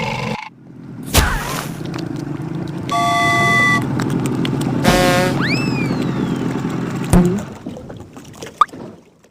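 Cartoon sound effects over a steady rushing noise: a knock about a second in, a short horn toot about three seconds in, a quick stepped zip followed by a falling whistle glide near the middle, and another knock around seven seconds before it all fades out.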